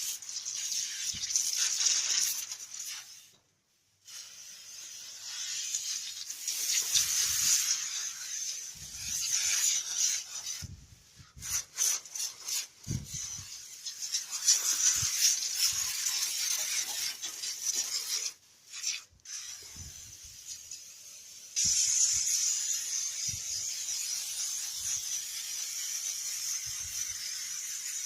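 Hissing, scrubbing noise of a Honda Civic FD engine bay being cleaned, in several stretches broken by sudden cuts, with a few light knocks.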